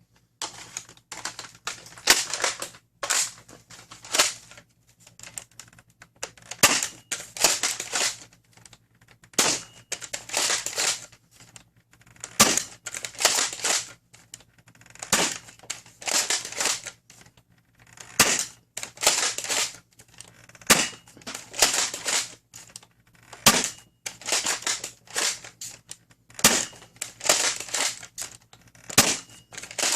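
Dart Zone MAX Stryker foam-dart blaster being fired over and over through a chronograph. Each shot comes as a sharp clack with clattering noise from the blaster's mechanism, about every two seconds.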